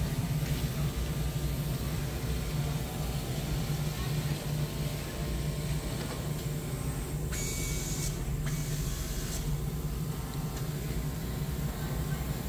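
Automatic fabric cutting machine running, with a steady low hum from its vacuum table holding the fabric stack down. Two short hisses come about seven and a half and nine seconds in.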